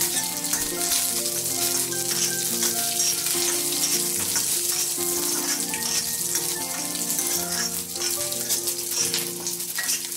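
Hot oil sizzling as green chillies, cumin seeds and curry leaves fry in an iron kadai, with a steel spoon scraping and stirring them around the pan. Soft instrumental background music with a melody runs underneath.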